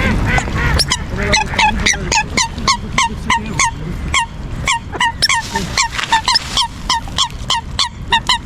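A bird calling rapidly and repeatedly, about three short downward-sweeping calls a second, over a low rumble.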